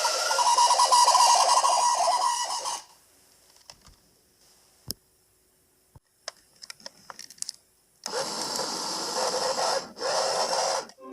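Small electric motor and gears of a toy remote-control car whirring in bursts. It runs for about three seconds, then goes quiet apart from a few light clicks, then runs again from about eight seconds with a short break near ten seconds.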